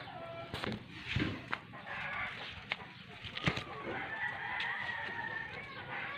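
A rooster crowing, one long drawn-out crow about four seconds in, with several sharp knocks and rustles from the phone being handled close up.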